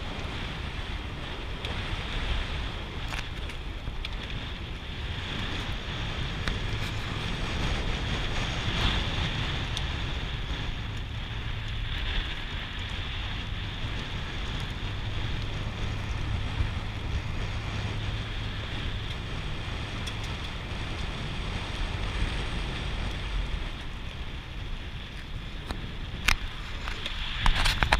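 Car driving along a gravel dirt road: steady tyre and engine rumble with wind on the microphone. A few sharp clicks come near the end.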